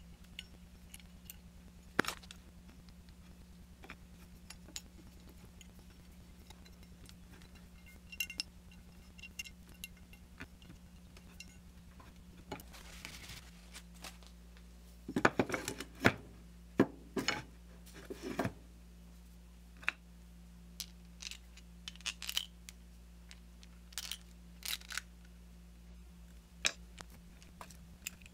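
Scattered clicks, taps and knocks of small metal parts being handled and fitted by hand: machine screws and a turned aluminium mount body against a plastic clamp plate and a wooden bench, with a cluster of louder knocks about halfway through. A steady low hum runs underneath.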